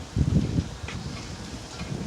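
Wind buffeting the microphone: irregular low rumbling gusts, strongest about a quarter second in.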